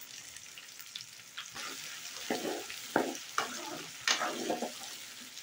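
Small onions and garlic cloves sizzling in hot oil in a metal kadai, stirred with a metal ladle that scrapes and knocks against the pan several times from about a second and a half in.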